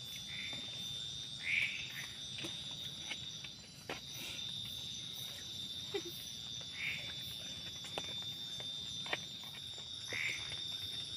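Night forest chorus: insects keep up a steady high-pitched drone while frogs give short calls every few seconds. A few faint sharp clicks sound in between.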